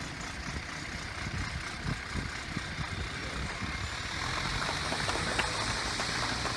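A steady low engine hum under even background noise, growing a little louder about four seconds in, with a few light clicks near the end.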